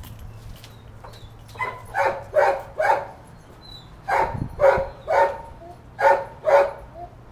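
A dog barking in short runs: about four barks, a pause, three more, then two more near the end.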